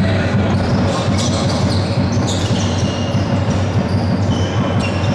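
Basketball game in a large hall: the ball bouncing on the wooden court and sneakers squeaking, over a loud steady low rumble.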